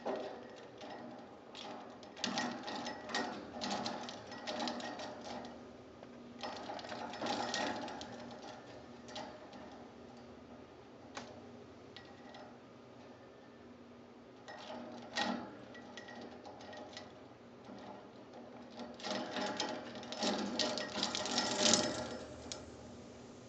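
Peach-faced lovebird pecking and chewing at a hanging wooden-bead and bell toy: bursts of rapid clicking and rattling, a few seconds each, the loudest near the end.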